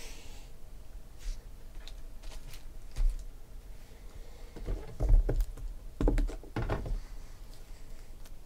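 Trading cards being handled on a tabletop: light clicks and taps as the card stack is picked up and set down, with a few soft thumps about three, five and six seconds in.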